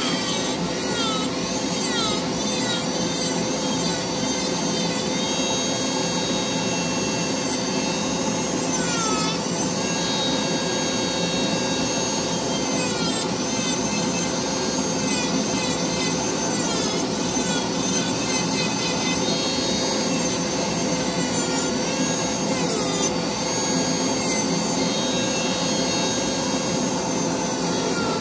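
Dremel rotary tool running at high speed with a carving burr grinding into hard cedar: a steady high motor whine over the rasp of wood being cut. The whine dips briefly in pitch several times as the burr bites harder.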